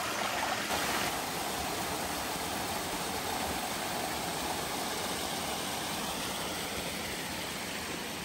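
Mountain brook rushing over boulders in small cascades: a steady, even rush and splash of falling water.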